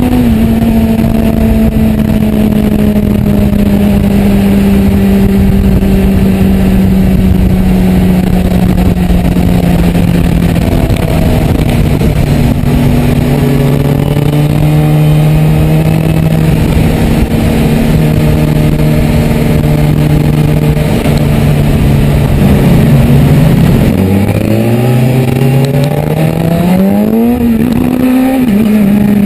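Motorcycle engine heard from the rider's seat over steady wind noise, its note sinking slowly while cruising, with a step down about a third of the way in. Near the end the note dips, then climbs steadily as the bike accelerates, and falls away again just before the end.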